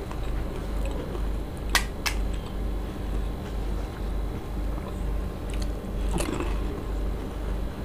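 Crisp fuchka (pani puri) shells cracking and crunching as they are broken open and eaten, with wet chewing. A few sharp cracks stand out, the loudest about two seconds in, over a low steady hum.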